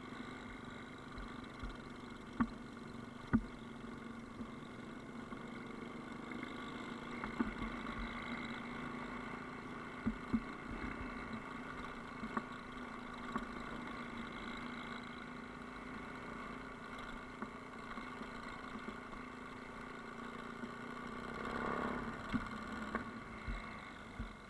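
Yamaha Ténéré motorcycle engine running at a steady speed on a rough off-road track, with sharp knocks now and then and a brief rise in level near the end.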